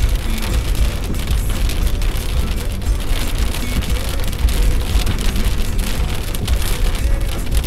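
Heavy rain falling steadily, dense with drop hits, over a constant low rumble.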